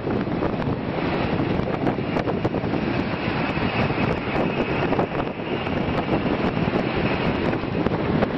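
Wind buffeting the microphone on a ship's open deck at sea, a steady loud rushing noise.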